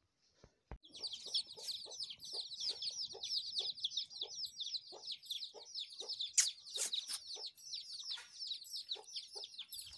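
A flock of chicks peeping, a dense, rapid, high-pitched chorus that starts about a second in, with short low clucks about twice a second beneath it.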